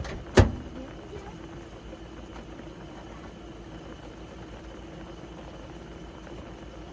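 A single sharp knock about half a second in, over a steady low hum.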